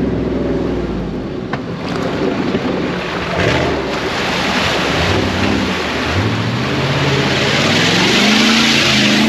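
Jeep Grand Cherokee ZJ's 5.2-litre V8 revving under load while it pushes through water, with loud rushing and splashing of water building from about three seconds in. The engine's pitch rises and falls, then climbs steadily near the end.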